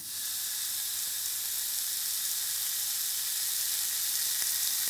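Sausage sizzling on a grill grate: a steady, even hiss that fades in at the start.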